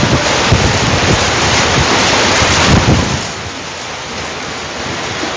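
Heavy rain and strong storm wind, with gusts buffeting the microphone. It is loudest for about three seconds, then eases to a steadier, quieter rush.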